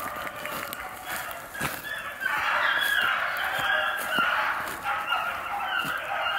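A pack of young beagles, five to six months old, baying together as they run a rabbit's track. The overlapping chorus of drawn-out bawls grows louder and fuller about two seconds in.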